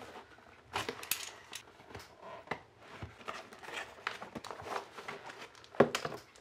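A cardboard box being opened by hand and a plastic-wrapped packet drawn out of it: a run of rustling, scraping and crinkling, with sharper, louder strokes about a second in and again near the end.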